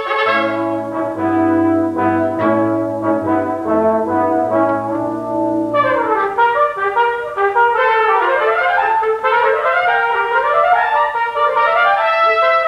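Brass quintet playing: tuba and trombone hold low notes under fast repeated notes in the trumpets and horn. About six seconds in the low brass drop out and the upper instruments trade quick rising and falling runs.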